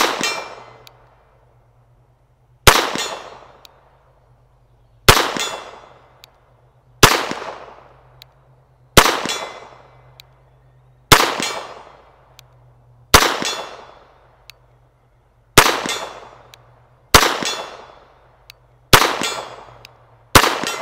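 Colt Government Model 1911A1 .22 Long Rifle pistol (made by Walther) firing eleven shots in slow, steady fire, about two seconds apart, each shot trailing off over about a second.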